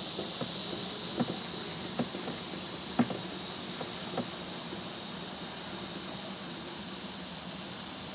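A vehicle running steadily, with a handful of sharp knocks in the first four seconds, the loudest about three seconds in.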